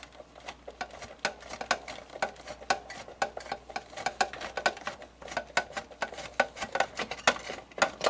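Phillips screwdriver turning a screw out of a desktop computer's metal heatsink shroud: a steady run of small, irregular clicks and scrapes, several a second.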